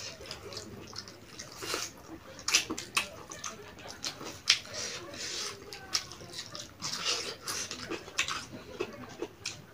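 Close-up eating sounds: chewing, lip smacking and wet mouth clicks as people eat fried chicken and vegetables with their hands, with sharp crunches scattered throughout.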